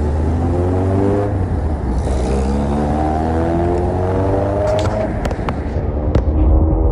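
Road traffic passing on a bridge roadway, engines rising in pitch as vehicles pull away and accelerate, over a steady low rumble. A few sharp clicks come about five to six seconds in.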